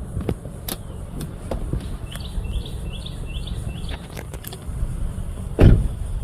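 A small bird gives a quick run of about five short rising chirps over a steady low rumble, with scattered crackles throughout and one loud thump near the end.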